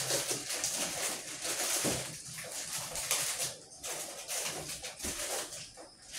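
Kitchen tap water running into the sink and splashing unevenly, with a short break about three and a half seconds in.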